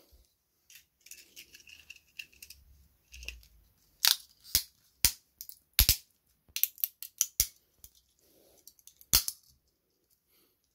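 Sharp clicks and snaps as metal pliers grip and squeeze a cheap toy car's body in a quality test: about a dozen separate cracks starting a few seconds in, the last and one of the loudest near the end.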